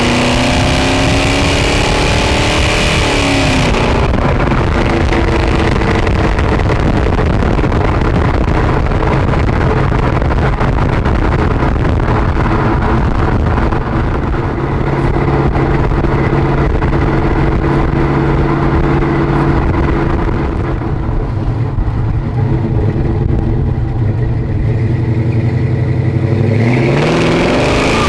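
1966 Chevelle's 454 big-block Chevy V8 under way. Revs rise for the first few seconds, then drop back and hold steady at cruise, and climb again near the end.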